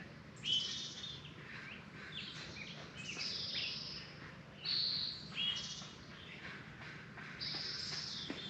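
Songbirds chirping and calling, several short bright phrases a few seconds apart, over a steady low hum.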